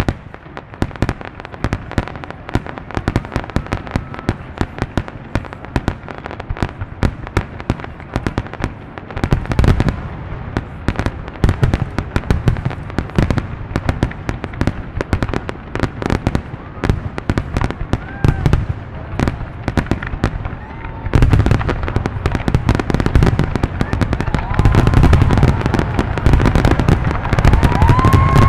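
Aerial fireworks: a dense run of sharp cracks and deep booms, growing heavier about nine seconds in and again past twenty seconds.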